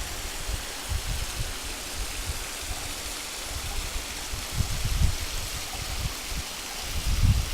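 Stream water running and splashing steadily, with irregular low rumbles underneath that grow stronger about two-thirds of the way in and again near the end.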